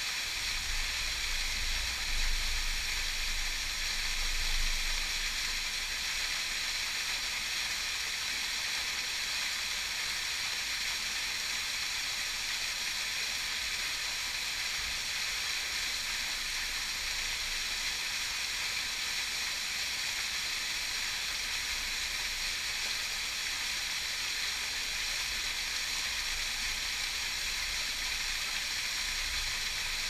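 Small waterfall pouring into a rocky plunge pool: a steady hiss of falling water, with a low rumble in the first few seconds.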